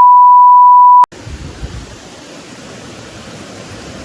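A loud one-second electronic bleep, a pure steady tone that starts and cuts off abruptly, of the kind used to censor a word. After it comes a steady, even rushing noise.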